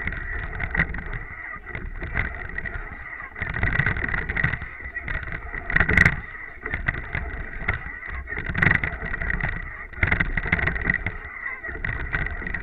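Water rushing and slapping against the bow of a racing rowing eight, swelling and fading every couple of seconds with the strokes, with wind on the microphone. A sharp knock about six seconds in.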